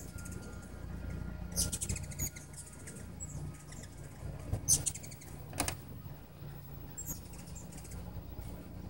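Hummingbirds at a feeder: a steady low wing hum under several short bursts of rapid, high, ticking chip calls.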